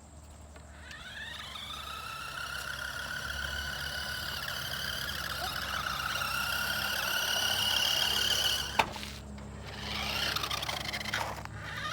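Electric motor of a toy remote-control side-by-side whining as it speeds up: the pitch rises a second in, then holds high and gets louder. A sharp click comes about three-quarters through, the whine drops away, then it winds up again near the end.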